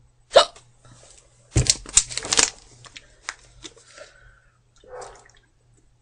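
A girl hiccuping with the hiccups: one sharp hiccup about a third of a second in, the loudest sound here, then a cluster of louder knocks and noise around two seconds in, and a short voiced hiccup near the end.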